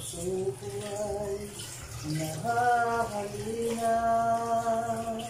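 A person singing a slow Tagalog song unaccompanied, the second phrase ending on a long held note. Underneath is the steady bubbling of a soup pot at a rolling boil.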